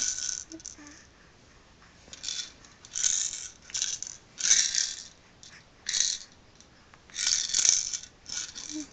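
Plastic toy maraca rattling as a baby shakes it in about seven short, irregular shakes, with a quiet stretch about a second in.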